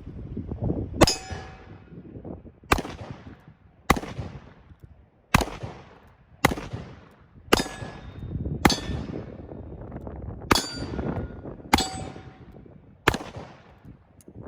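A string of about ten revolver shots from single-action revolvers, fired one to two seconds apart, each followed by a fading tail, several with a metallic ring.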